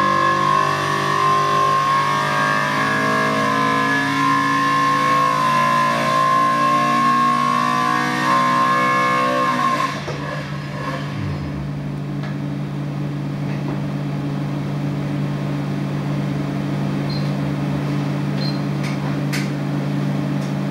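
Isuzu G180 four-cylinder race engine at full throttle under load on an engine dynamometer during a power run, its pitch climbing steadily as the revs rise to over 7,300 rpm. About ten seconds in the throttle is cut and the engine winds down, leaving a steady hum with a few faint ticks near the end.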